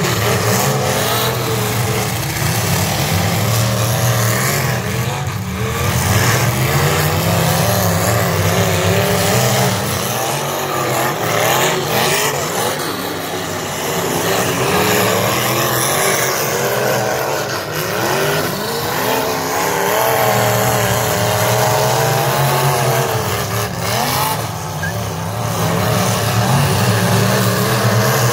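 V8 demolition derby cars' engines running hard on a dirt track, their pitch rising and falling again and again as they rev and back off.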